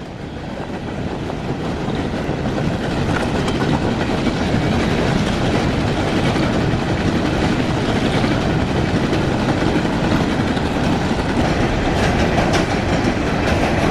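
Loaded freight train of coal cars rolling past, a steady heavy rumble and rattle of the cars that swells over the first couple of seconds and then holds.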